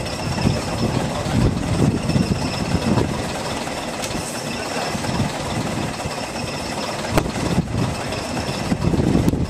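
Engine idling steadily with a low rumble, from the crane holding the jet engine on its hook, with two sharp clicks, one past the middle and one near the end.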